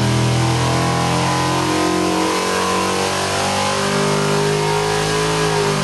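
Ford V8 engine running loudly on an engine dynamometer, held at a steady speed with an even engine note.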